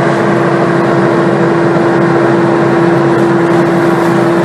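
Dust-extraction fan running steadily in the chimney, pulling demolition dust out through an exhaust tube: a loud, even rushing with a constant hum.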